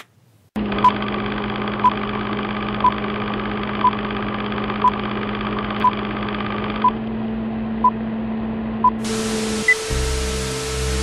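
Old-film countdown leader sound effect: a steady hum and hiss with a short beep once a second, nine beeps in all. About nine seconds in it gives way to TV static, a louder hiss with a steady tone through it.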